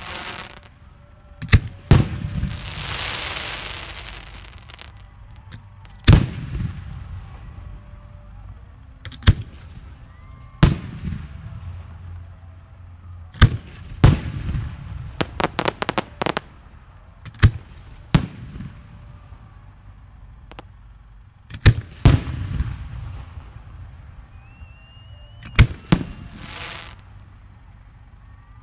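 Fireworks display shells bursting: about a dozen sharp bangs at uneven intervals, with a quick string of rapid reports about halfway through. A crackling hiss follows a burst early on and another near the end.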